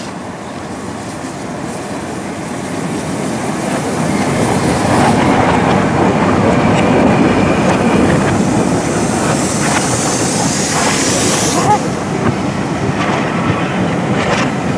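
LMS Royal Scot class 4-6-0 No. 46100 passing close by and growing louder about four seconds in. Its train of coaches then rolls past with wheels clattering over the rail joints.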